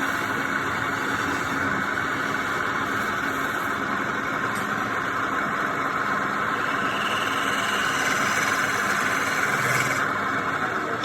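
Wood lathe running steadily, its hum and hiss easing off near the end.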